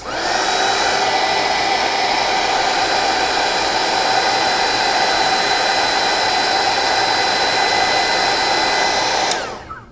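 Handheld craft heat gun switched on, spinning up and blowing steadily with a motor whine, then switched off about nine seconds in, its whine falling away. It is drying a wet watercolor layer.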